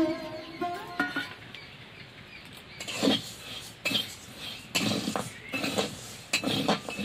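A metal spatula stirring and scraping dry sabudana (tapioca pearls) around a metal kadai as they are dry-roasted, in repeated strokes from about three seconds in.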